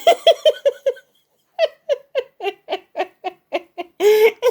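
Cat giving a rapid series of short, repeated calls while playing with a toy, about four a second. The calls stop briefly about a second in, then start again, and there is one longer call near the end.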